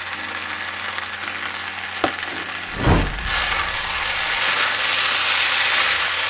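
Fried rice sizzling in a hot pan, with a knock about three seconds in, after which the sizzle gets louder.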